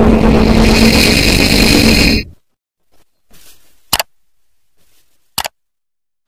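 Loud electronic intro music that cuts off abruptly about two seconds in, followed by near silence broken by two short, sharp clicks, the click effects of a subscribe-button animation.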